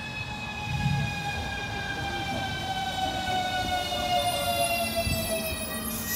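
Lastochka (Siemens Desiro RUS) electric train arriving at the platform, its traction motors giving a steady whine that slowly falls in pitch as the train slows, over a low rumble of the wheels. The whine stops near the end, giving way to a brief hiss.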